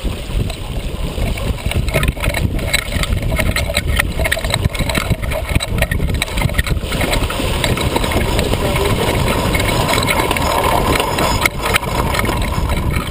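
Wind buffeting the microphone and water rushing past the hull of a small keelboat sailing hard in a strong breeze. The rush grows louder and hissier about seven seconds in.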